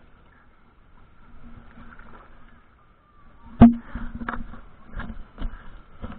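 Kayak paddle strokes close by: from about midway, a run of sharp splashes and knocks, roughly one every two-thirds of a second, the first the loudest.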